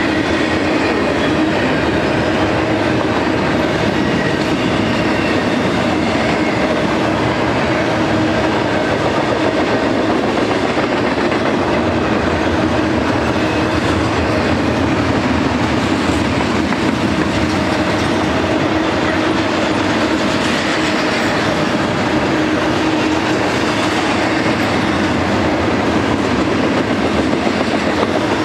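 Double-stack intermodal container train's well cars rolling past: a steady rumble and clatter of steel wheels on rail, with a steady low tone running through it.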